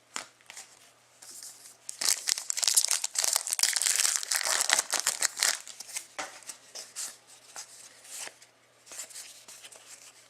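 A foil trading-card pack wrapper being torn open and crinkled, loudest for about three seconds starting some two seconds in. Light ticks and rustles of the cards being handled come before and after it.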